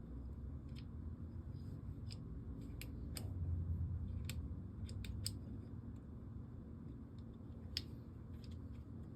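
Small metal parts of a forced-reset trigger clicking as the cam and safety selector are handled and fitted into the rifle's lower receiver: a handful of sharp, uneven clicks over a low steady hum.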